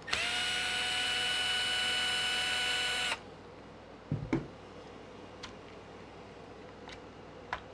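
Milwaukee cordless screwdriver spinning up and running steadily for about three seconds as it backs a chassis screw out of the RC car, then stopping abruptly. A couple of light knocks come about a second later, followed by a few faint clicks.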